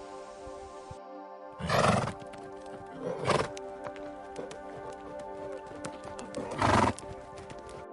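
A horse heard over soft background music: three loud short calls, about a second and a half in, around three seconds in and near the end, with scattered hoof clip-clop between them.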